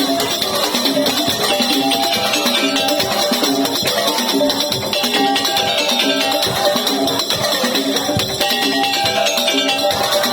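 Madurese daul (tong-tong) percussion ensemble playing: a short melodic figure repeats over a dense, steady beat.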